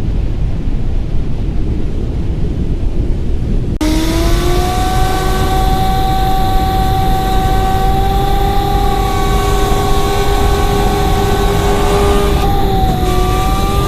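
A low rumbling noise gives way abruptly, about four seconds in, to a vehicle running at speed with a steady high whine that rises slightly in pitch.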